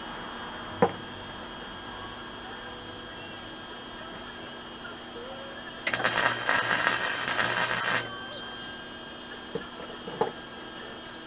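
MIG welder arc crackling for about two seconds as a tack weld is laid on the steel tubing of a go-kart frame, about six seconds in. A sharp knock comes near the start and two lighter knocks near the end, over a steady faint hum.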